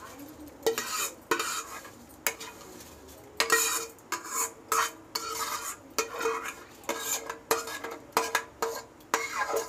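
A metal spoon scraping roasted vermicelli out of a non-stick kadai into a pot of hot water: many quick scrapes and knocks against the pan in an uneven rhythm, each with a short metallic ring.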